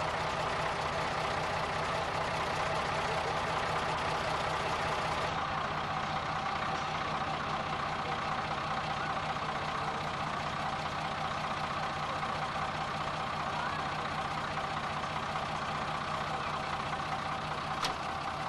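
Fire truck's engine running steadily, driving the hydraulic aerial platform as its boom lifts the rescue basket. A single short click near the end.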